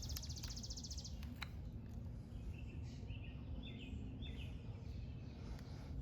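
Birds chirping faintly over a steady low hum: a fast high trill that stops about a second in, then several short chirps, with a couple of light clicks.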